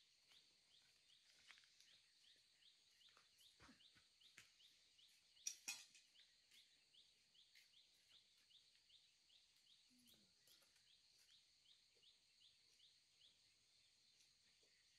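Faint outdoor ambience: a steady high hiss with a small chirp repeating about three times a second, and scattered soft clicks with one sharper knock about five and a half seconds in.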